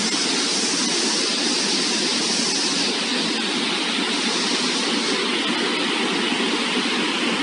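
Water rushing steadily through an open dam spillway gate and pouring into the river below, a constant noise of falling white water.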